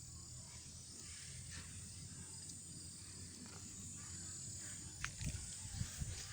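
Quiet outdoor field ambience: a steady faint high hiss over a low rumble, with a few soft knocks near the end as of footsteps.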